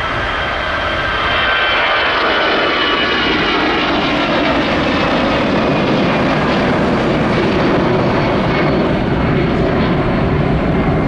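Airbus A319 twin jet engines at takeoff thrust as the airliner lifts off and climbs away: a loud, steady engine roar. A high whine in it slowly falls in pitch, and the sound turns deeper towards the end.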